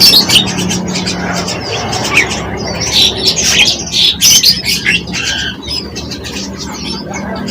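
Small songbirds chirping and calling in quick, high, varied notes, busiest a few seconds in, over a low steady hum.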